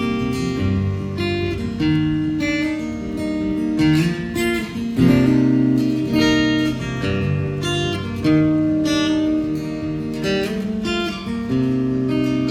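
Strummed acoustic guitar chords: the instrumental intro of a country song, played live.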